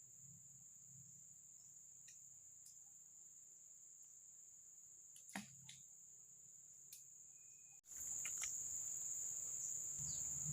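Steady high-pitched insect drone with a few faint clicks; about eight seconds in, the background noise suddenly gets louder.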